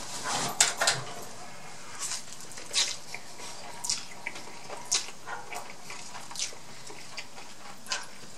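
Close-up wet mouth sounds of someone eating ramen noodles: a string of short slurps and wet chewing smacks.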